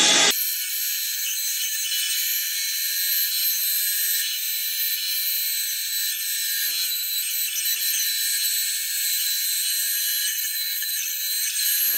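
Bandsaw cutting wood: a louder, fuller power-tool sound cuts off just at the start, leaving a steady high-pitched whine with no low rumble.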